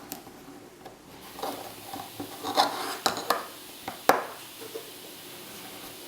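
Hard objects being handled: irregular rubbing and scraping with a few sharp knocks, the loudest about four seconds in, over a faint steady hiss.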